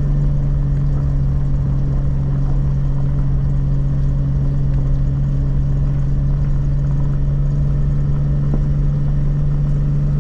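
Jeep Wrangler LJ running steadily while driving, heard from inside the cab as an even, low engine hum and rumble that does not change.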